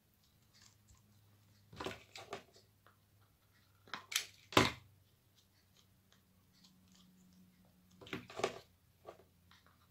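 Handling noise from working jute twine around a plastic cream jar with a hot glue gun: short scrapes and knocks in three clusters, the sharpest just past halfway, over a faint low steady hum.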